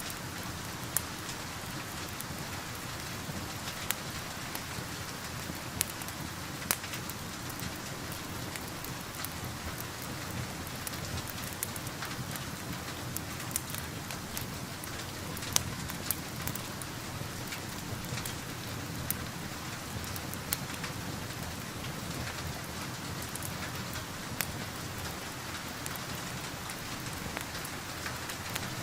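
Steady rain with scattered sharp pops from a crackling wood fire.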